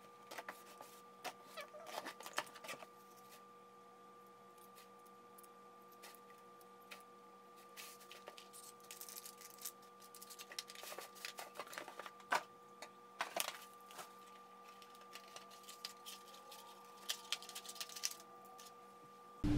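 Quiet handling of gift packaging: cardboard box flaps, tissue paper and a crinkly foil bag rustle, with scattered small taps and clicks. Near the end, metal cutlery gives a few light clinks. A faint steady hum sits underneath.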